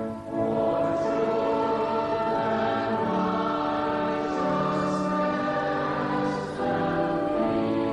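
Church choir singing long, held phrases with organ accompaniment, with short breaks between phrases, one just after the start and one near the end.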